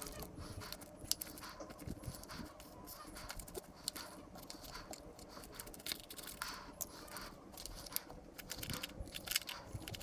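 Faint, irregular clicks and light rustling from hands planting bean seeds in garden soil.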